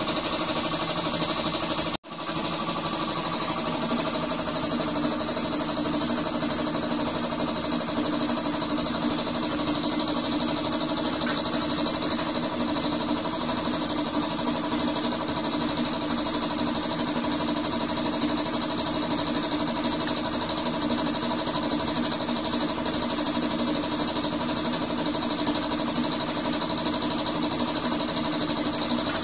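A machine running with a steady, even drone, cut off for an instant about two seconds in.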